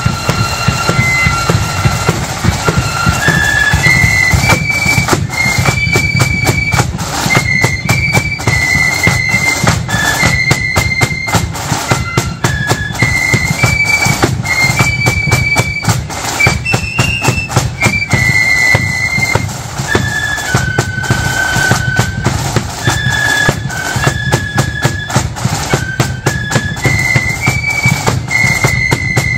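Marching flute band playing a tune in unison, its high melody carried over continuous snare drumming and a bass drum.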